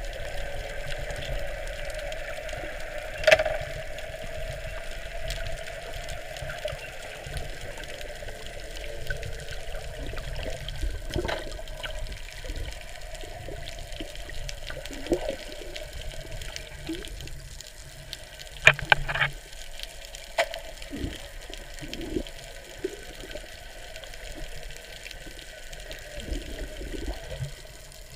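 Water heard through a camera held underwater: a steady, muffled wash with scattered clicks and knocks, a sharp knock about three seconds in and a quick cluster of clicks about two-thirds of the way through.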